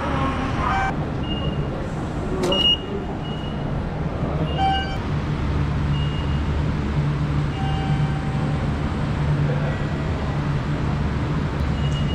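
Station ambience: a steady low hum, with short electronic beeps from automatic ticket gates, one high beep about two and a half seconds in and another near four and a half seconds.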